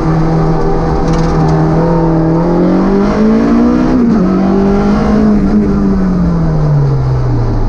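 Citroën Saxo VTS rally car's 1.6-litre four-cylinder engine heard from inside the cabin, the revs climbing hard under acceleration. The pitch dips briefly about four seconds in, as at an upshift, holds, then falls steadily as the car slows near the end.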